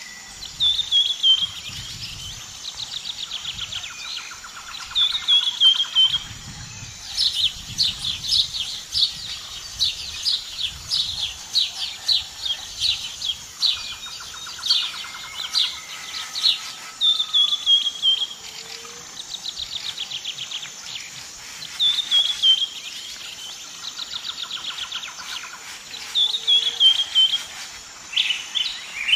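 Several songbirds singing. One repeats a short phrase that falls in pitch every few seconds, while others overlap with rapid trills through the middle.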